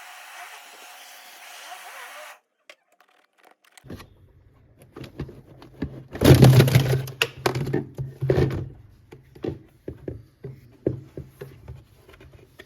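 A steady hiss that cuts off after about two seconds, then, after a short pause, irregular knocks, scrapes and clatter over a low hum, loudest about six seconds in, as parts of a refrigerator's freezer compartment are handled during repair.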